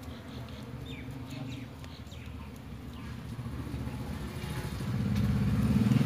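A motor vehicle's engine drones low and grows steadily louder from about four seconds in as it approaches. There is a short high chirp about a second in.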